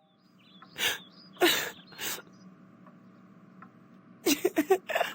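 A young girl's voice sobbing and gasping in short breaths, three at first and then a quick run of them near the end.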